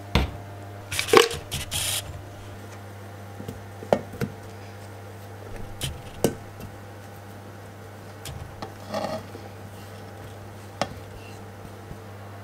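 Scattered knocks and clinks of a Thermomix's stainless steel mixing bowl being handled, with the loudest cluster about one to two seconds in, then a ceramic plate tapped and scraped against the bowl's rim as almond pulp is tipped in. The mixer's motor is not running.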